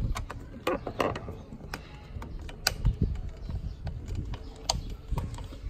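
Irregular clicks and small metal knocks from hand tools working the fittings of a car's cone air intake and its hose clamp as it is screwed into place.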